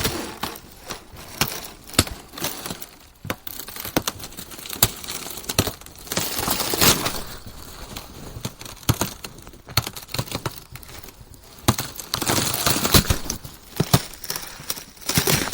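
Ice cracking: a run of sharp snaps and crackles, growing into denser bursts of crackling about halfway through and again near the end.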